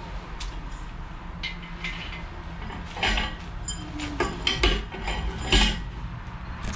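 Metal clinks and knocks from handling a Honda D16A short block on its engine stand: a few sharp strikes about three seconds in, then more around four and a half and five and a half seconds.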